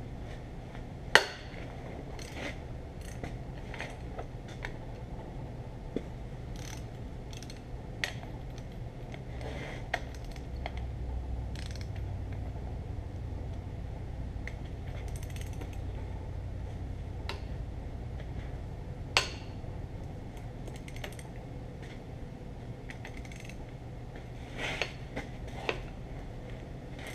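Hand ratchet wrench clicking and steel tools clinking against metal as the bolts of a tractor's brake cover are loosened. The clicks come irregularly, with sharp loud knocks about a second in and again past the middle, and a quick cluster near the end.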